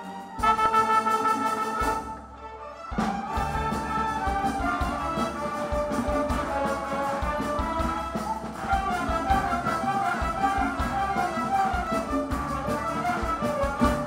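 Youth orchestra playing with strings and brass: a held chord, a short dip about two seconds in, then a busier passage of moving notes.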